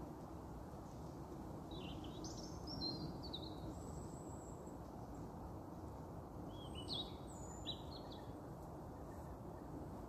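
A small songbird gives two short phrases of high chirping notes, about two seconds in and again around seven seconds, over a steady low background hiss.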